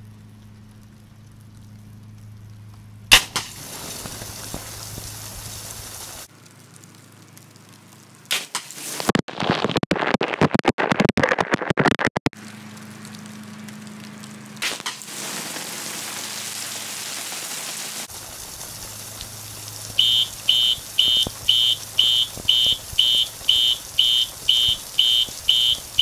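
A glass-bulb sidewall fire sprinkler, rated at 155 °F, bursts with a sharp crack about three seconds in. It then sprays water with a steady hiss, which turns loud and ragged for a few seconds in the middle. From about twenty seconds in, a fire alarm horn sounds in even pulses of about two a second, set off by the waterflow switch detecting the sprinkler's flow.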